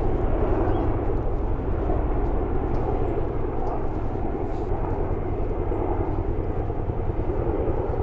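A formation of helicopters, one a large tandem-rotor type, flying over: a steady rapid rotor chop with engine rumble, easing off slowly as they pass.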